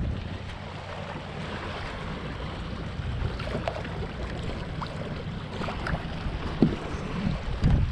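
Wind buffeting the microphone over water sloshing around a kayak, with a few dull knocks near the end.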